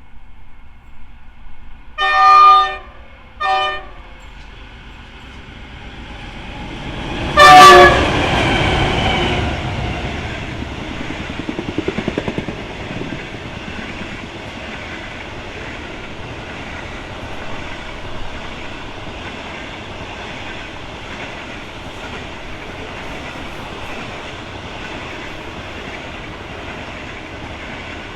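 Locomotive horn sounding two short blasts, then a third, louder blast as the locomotive passes close by. The steady rumble and wheel clatter of the train's cars rolling past follows.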